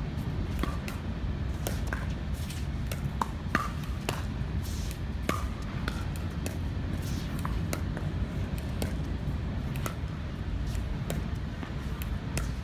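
Pickleball paddles striking a hard plastic pickleball in a doubles rally, with the ball bouncing on the hard court: sharp pops at irregular intervals, over a steady low rumble.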